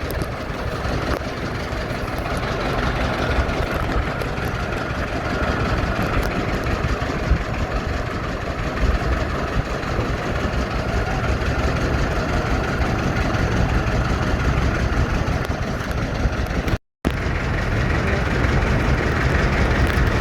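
Motorboat engine running steadily, a low rumble with water and wind noise over it. The sound cuts out completely for a moment near the end, then resumes.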